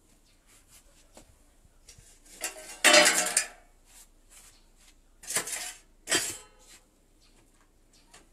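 Metal-on-metal clatter from a stainless-steel mini drum smoker and its lid: a loud ringing clang about three seconds in, then two shorter clanks a couple of seconds later.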